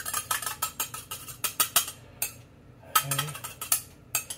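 Metal spoon tapping and scraping against a cup in quick, irregular clicks while beaten eggs are scraped out into a mixing bowl.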